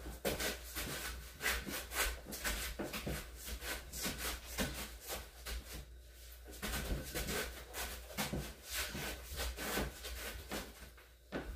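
Quiet, uneven hand clapping, about three or four claps a second, with a short pause about six seconds in.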